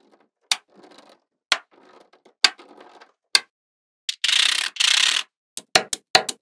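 Small magnetic balls snapping together in sharp clicks, about one a second. A little past four seconds in come two short, louder rattling rushes, then a quick run of clicks near the end.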